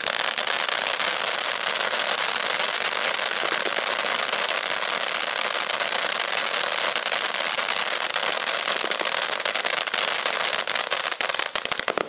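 Bright Star consumer ground fountain burning: a steady hiss of spark jets thick with crackling.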